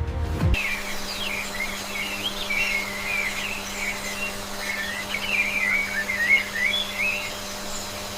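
Birds chirping and whistling in quick, continuous, warbling phrases over a faint steady hum.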